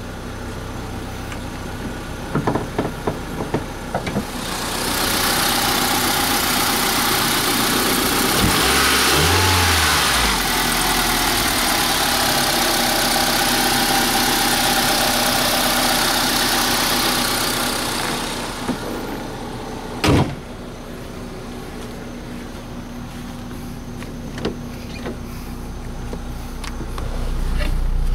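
A 2003 Honda Civic running. About five seconds in, a loud, even rushing noise comes in, holds for some fourteen seconds and then drops away. A few clicks come near the start, and one sharp knock comes about twenty seconds in.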